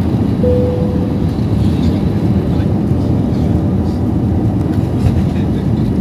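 Steady, loud rumble of an airliner's engines and airflow heard from inside the cabin on departure. A short steady tone sounds briefly about half a second in.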